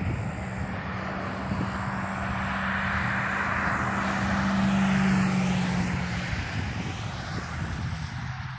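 A pickup truck passing on the highway below: engine hum and tyre noise swell to a peak about five seconds in, then fade as it goes by, the hum dropping slightly in pitch.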